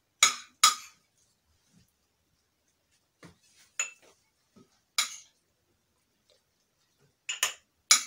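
Metal spoon clinking against a ceramic plate and a small glass jar while grated turnip is spooned into the jar: two loud clinks in the first second, then a few more, a second or so apart.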